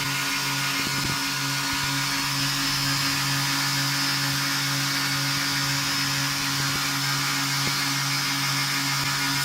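Homemade belt grinder running steadily: an electric motor's even hum under the hiss of the sanding belt.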